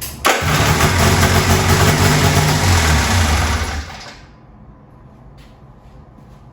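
Yamaha 540 snowmobile two-stroke engine catching and running loudly for about three and a half seconds, then cutting out suddenly.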